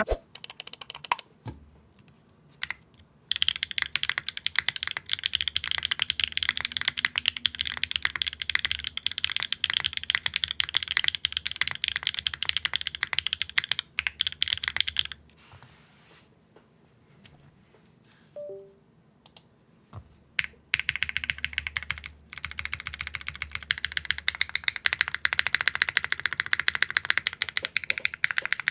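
Fast typing on a Neo65 Core Plus mechanical keyboard fitted with Wingtree BM10 tactile switches, GMK keycaps and a carbon-fibre plate: a dense run of keystrokes with a deep bottom-out. The typing pauses briefly about two seconds in and again for several seconds in the middle, then resumes.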